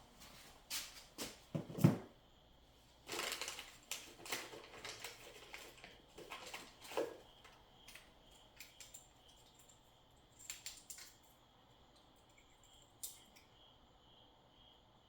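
Intermittent handling noises: rustles, scrapes and sharp clicks of objects and packaging being moved, busiest in the first half and sparser later. A faint, steady, pulsing high-pitched chirp runs underneath.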